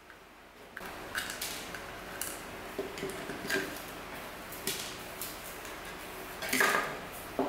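Hands working on a plastic security-camera housing with a screwdriver: irregular sharp clicks, taps and clatter of plastic parts and metal tool, with the loudest clatter near the end.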